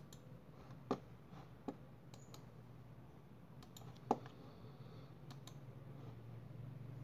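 Computer mouse clicks: about ten short, irregular clicks, the loudest about four seconds in. A steady low hum runs underneath.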